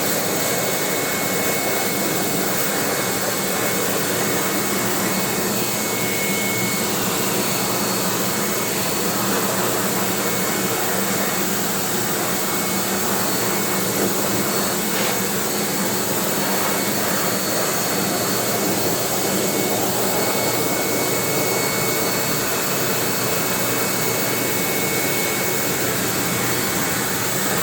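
Dog blow dryer fitted with its wider nozzle tip, running steadily: a continuous rush of air with a faint steady whine.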